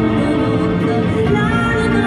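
Symphony orchestra with strings playing, and a woman singing long held notes over it.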